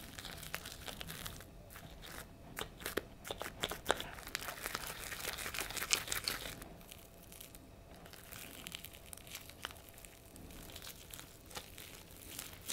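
Fluffy slime being stirred with a plastic spoon in a plastic bowl just after the activator has gone in, making sticky clicks and crackles as it thickens. The clicks are busiest in the first half, then thin out and quieten.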